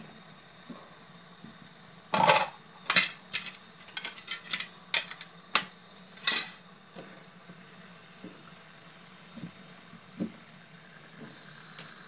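Fidget spinners being picked up, set down and flicked into spin on a mat: a run of about nine sharp clicks and metallic clinks starting about two seconds in, then a faint high whir from the spinning bearings.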